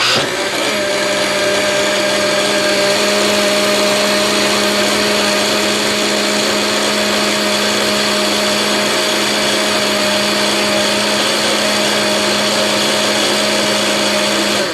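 Small electric blender switched on, starting suddenly and then running at a steady high speed with an even motor hum and whirr.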